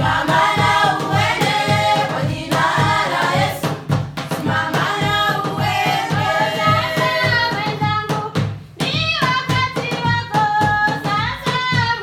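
Choir singing over a steady drum beat.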